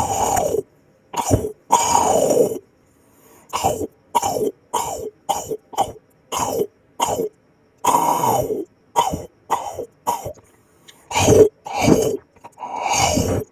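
ASMR eating sounds of green jelly being chomped and crushed: a fast, irregular series of short wet chomps and squelches, with a brief pause about three seconds in.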